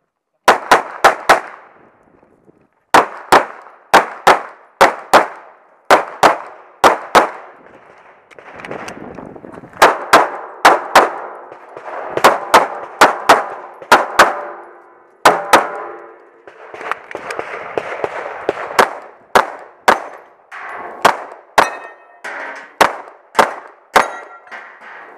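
Pistol fire during a timed USPSA stage: a fast string of four shots, then shots mostly in quick pairs. Later shots are followed by short metallic ringing as steel targets are hit.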